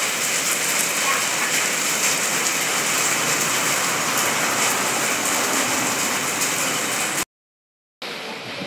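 Rain falling steadily, an even hiss of drops. About seven seconds in it cuts off suddenly for most of a second, then comes back quieter.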